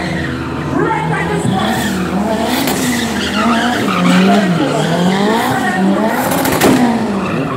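Small hatchback's engine revving up and down about once a second as the car spins donuts, its tyres skidding and squealing on concrete.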